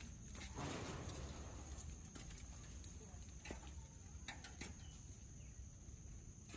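Faint footsteps on a wet trail and wooden steps: scattered knocks and a scuffing rustle about a second in, over a steady high insect drone.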